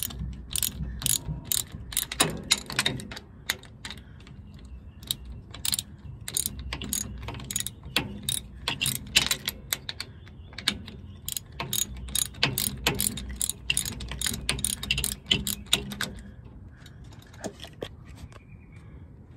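Socket wrench ratchet clicking in quick runs of strokes as a loosened 13 mm bolt on a differential speed sensor is backed out. The clicks thin out and grow fainter about three seconds before the end.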